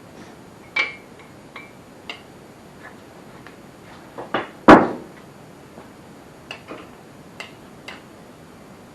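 Scattered hard clicks and knocks of engine parts and tools being handled on the bench during a piston and crank teardown, with one loud knock a little under five seconds in.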